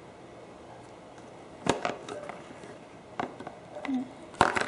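A few sharp clicks and small knocks of bullet connectors and their plastic sleeves on motorcycle turn-signal wiring being handled and worked apart. The loudest is a quick double click near the end.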